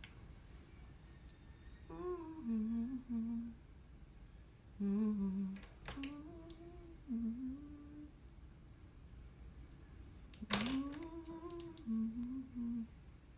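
A woman humming a tune to herself in short melodic phrases with pauses between them, with a couple of sharp light clicks along the way.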